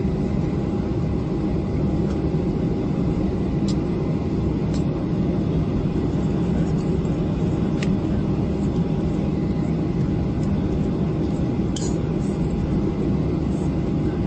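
Steady cabin noise of a Boeing 737-700 taxiing: an even low rumble of the jet engines at taxi power with a faint steady whine. A few faint ticks are heard now and then.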